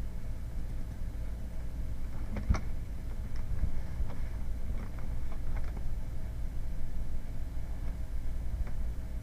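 Steady low hum of room or computer noise, with about half a dozen short, light clicks scattered through it, the sharpest about two and a half seconds in.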